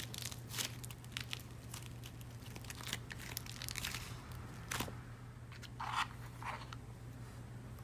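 Dried clay crust cracking and crumbling as it is squeezed by hand: a dense run of small snaps and crackles, then a sharper snap just before five seconds. Two short squeaks follow about six seconds in, over a steady low hum.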